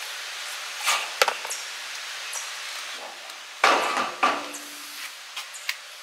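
Clicks and clatter of a dog leash and its plastic reel being fastened around a steel post: a few sharp clicks about a second in, then a louder clatter of knocks near the middle.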